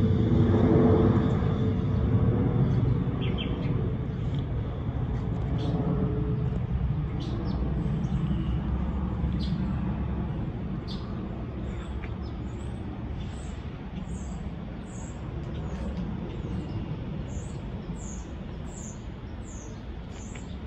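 Airbus A320-232 airliner's twin IAE V2500 turbofans passing overhead as a low rumble that fades steadily as the jet climbs away. A bird chirps over it, with a quick steady run of short high chirps, a little more than one a second, in the second half.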